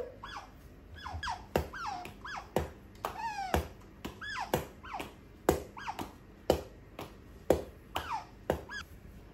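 Asian small-clawed otter squeaking in short chirps that fall in pitch, over hand claps about once a second, eight in all, starting about a second and a half in.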